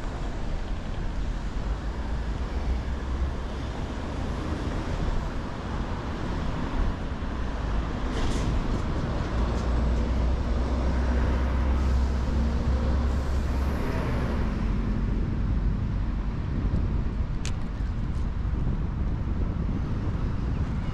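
Steady city road traffic. A heavier vehicle's low engine rumble swells about halfway through, and there are a couple of short sharp clicks near the end.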